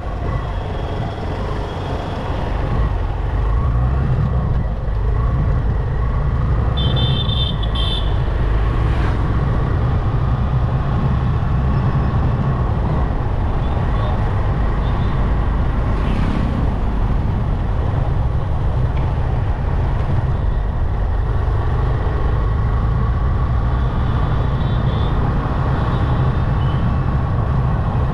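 Road noise from a motorcycle riding through city traffic: a steady low rumble of engine and wind. Vehicle horns toot briefly about seven seconds in and again near the end.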